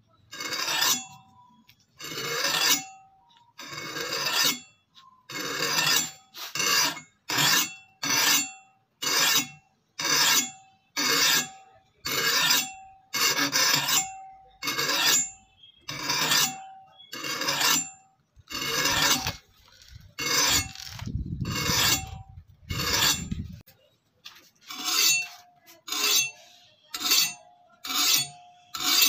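Flat hand file rasping along the edge of a steel axe head clamped in a bench vise, sharpening the edge: a steady run of separate strokes, about one a second, coming quicker near the end. The axe head rings faintly after many of the strokes.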